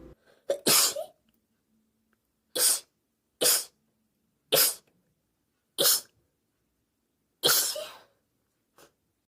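A young woman sneezing in a fit, about seven loud sneezes one after another, spaced a second or so apart, with a faint last one near the end.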